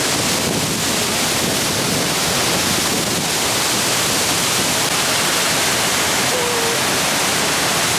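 Waterfall, a steady loud rush of falling water.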